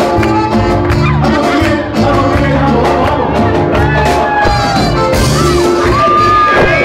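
Loud live band music with keyboards, a drum kit and conga drums over a steady, repeating beat, and a voice singing over it.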